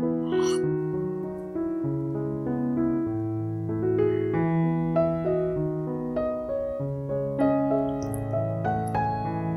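Background piano music: a steady melody of single notes over a slower-moving bass line.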